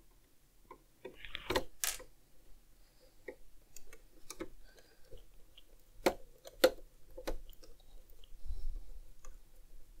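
Small screwdriver driving a tiny screw into a model car's seatbelt fitting: light, scattered clicks and ticks of the tool and the parts being handled, with sharper clicks about a second and a half in and again around six to seven seconds in.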